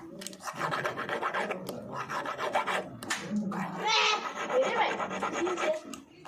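Metal file rasping back and forth over a freshly joined brass key, smoothing the joint.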